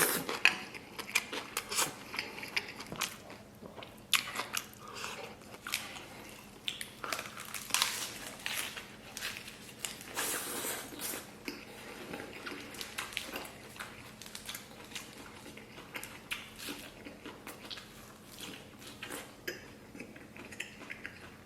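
A person biting and chewing, close to the microphone, while eating soy-braised beef ribs and rice: irregular wet smacks and clicks of mouthfuls being chewed.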